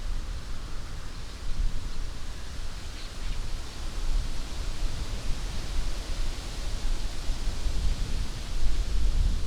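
Wind blowing through the leaves of an old alder tree: a rushing hiss that swells and eases with the gusts, with a low rumble underneath.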